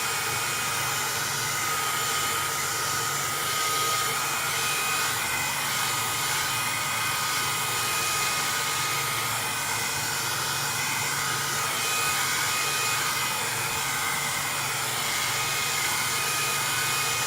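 Heat gun running steadily, blowing hot air over a PlayStation 3 motherboard to heat it, a steady rush of air with a faint high whine.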